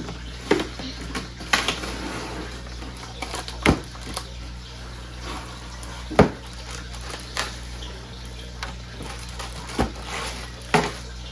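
Cardboard and clear plastic toy packaging being pried open and handled on a tabletop: rustling and crinkling, broken by several sharp clacks and knocks spread a second or two apart.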